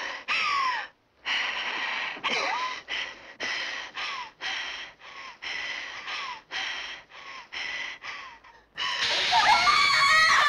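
A woman's hissing, gasping breaths in quick succession, about a dozen, each with a short squeal falling in pitch. Near the end comes a louder, drawn-out shriek, as she cries out in pain at a cross held to her face.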